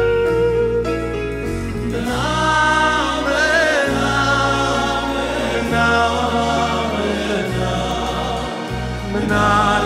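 Band and male choir performing Jewish music: held instrumental notes, then male voices singing a wavering melody line from about two seconds in, over violin, keyboard, bass and drums.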